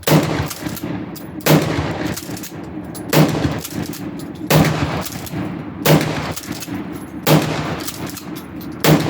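Mossberg shotgun fired seven times in steady succession, about one shot every second and a half, each blast followed by a ringing echo.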